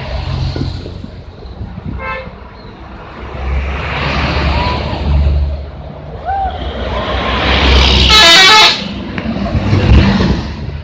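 Coach bus engine running, with its multi-tone telolet horn sounding in one loud, warbling half-second blast about eight seconds in. A brief toot comes about two seconds in.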